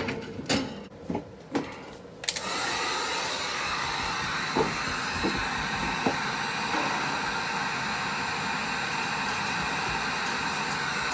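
A few knocks, then about two seconds in a handheld hot-air blower switches on and runs steadily, heating the ice in an RV freezer to defrost it.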